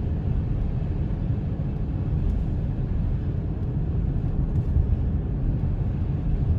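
Steady road and engine rumble heard from inside a car's cabin as it drives at about 30 mph.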